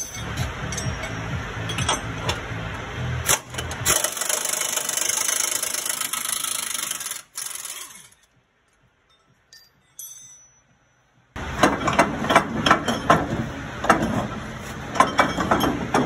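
Metal tool work on a Freightliner Cascadia's front leaf spring bolt: a rattling, hissing stretch, a break of near silence about halfway, then a run of sharp metal knocks, several a second, near the end.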